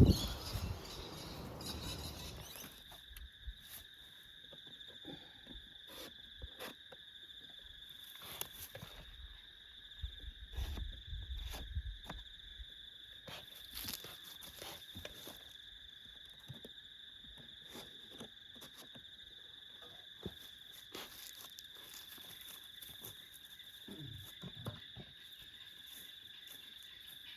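Steady night insect chorus, a continuous high-pitched trill at two pitches, with scattered clicks and knocks throughout. A loud low thump comes right at the start.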